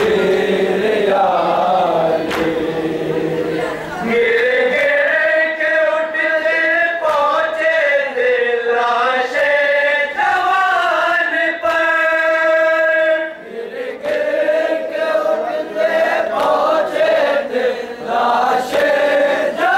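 Group of male voices chanting a nauha, a Shia mourning lament, with a lead reciter and the others joining in unison on long held notes.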